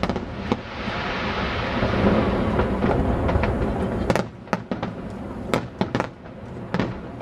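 Aerial fireworks shells bursting: a dense, continuous rumble of overlapping bursts for about four seconds, then the sound thins into separate sharp bangs and pops.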